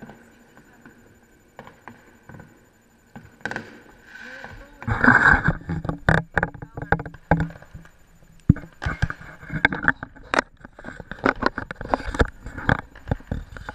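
Close handling noise on the camera: irregular rubbing, scraping and knocks, much louder and denser from about five seconds in.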